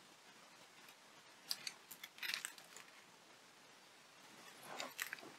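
Faint clicks and rustles of small pearl beads and thin #26 craft wire being handled as the beads are threaded onto the wire, in two short clusters about a second and a half in and again near the end.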